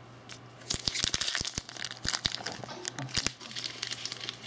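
Crinkling and rustling of a foil trading-card pack wrapper being handled and torn, with many small sharp crackles, starting just under a second in.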